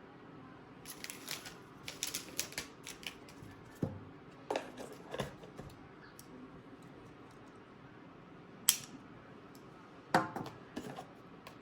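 Hands handling an iPad: scattered light clicks and taps in small clusters, with one sharper click near the middle.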